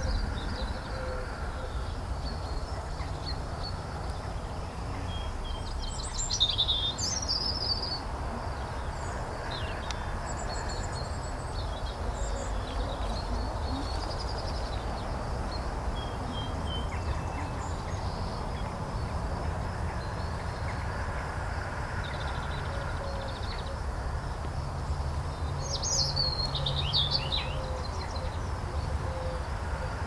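Birds chirping and calling over a steady low outdoor rumble, with two louder bursts of high chirping, one about six seconds in and one near the end.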